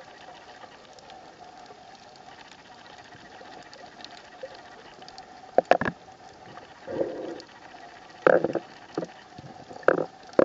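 Muffled underwater sound recorded through a waterproof camera housing: a steady low hiss with a faint hum. In the second half, several short loud bursts of water sound break in.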